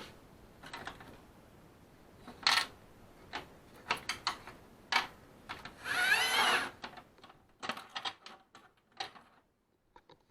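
Scattered clicks and knocks of hard plastic parts being handled, with a brief scraping rustle about six seconds in.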